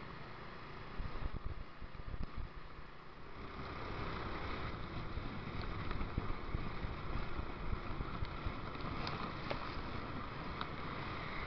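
Muffled wind and riding noise of a scooter moving through traffic, heard through a sealed waterproof action-camera case. It grows louder a few seconds in as the bike picks up speed.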